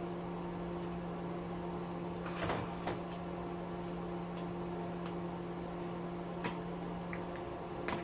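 Steady low electrical hum, with a few light clicks and taps of small parts being handled: two close together about two and a half seconds in, one more past the middle and one at the end.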